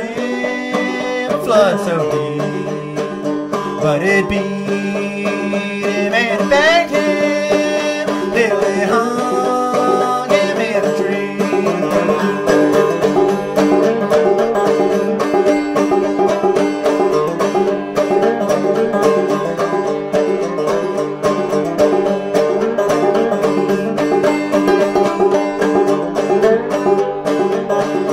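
Background music: a country-style string tune with sliding notes for about the first ten seconds, then a run of fast picked notes.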